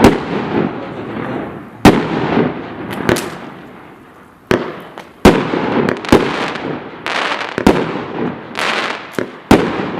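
MBK 531 multi-shot firework battery going off: about eight sharp bangs at irregular intervals of roughly a second, with a dense crackle filling the gaps between them.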